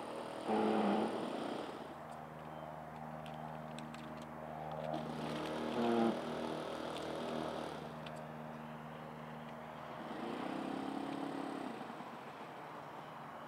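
Propellers of a quad tilt-rotor model aircraft buzzing steadily in flight, a pitched drone that swells louder three times, around a second in, around six seconds in and again about ten seconds in, as the motors throttle up or the aircraft passes closer.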